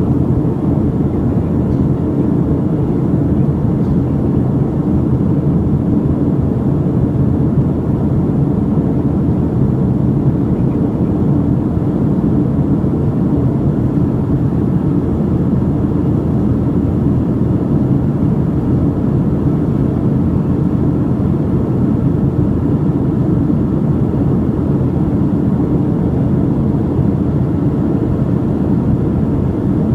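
Steady low rushing noise of an airliner in cruise flight, heard inside the passenger cabin.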